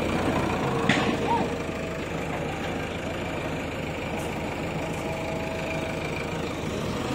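Heavy diesel engine idling steadily with an even low rumble, with a single sharp metallic knock about a second in.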